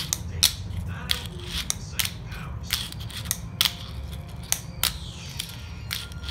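A 34 mm Teak Tuning fingerboard being popped and landed with the fingers: a string of sharp, irregular clacks of the board's tail and wheels striking the floor, about ten in six seconds, over a low steady hum.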